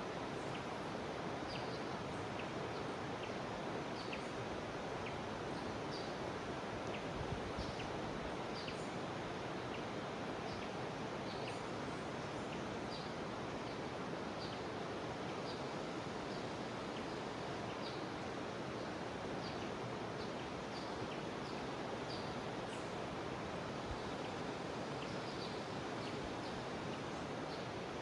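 Jungle river flowing with a steady rush, with short high chirps from insects or birds scattered about once a second over it.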